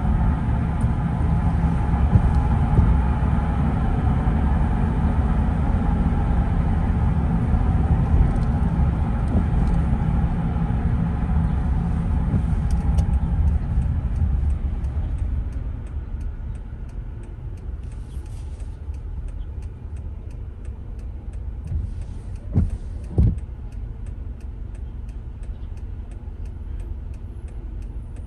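A car driving on a wet road in the rain: a heavy, low tyre-and-road rumble with hiss above it, which drops off about halfway to a quieter hum. Over the quieter part comes a run of light, evenly spaced ticks, and two short thumps a few seconds from the end.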